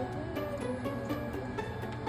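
Background music: a light plucked-string tune over a steady beat.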